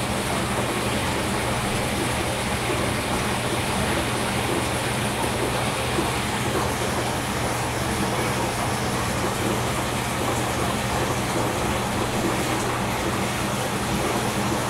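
Steady aquarium running noise: a low hum under an even rush of bubbling water from a sponge filter's air-lift tube.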